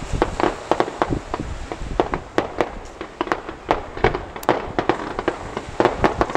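Fireworks going off in a rapid, irregular barrage of sharp bangs and cracks, several a second.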